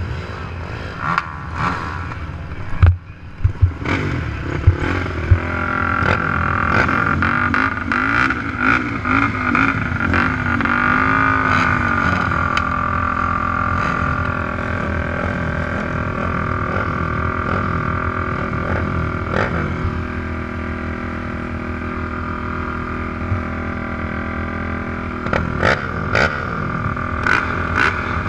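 Race quad engines, among them a Honda TRX450R's single-cylinder four-stroke, idling together, with the pitch wavering for a few seconds as a throttle is worked. A few sharp knocks sound about three to five seconds in.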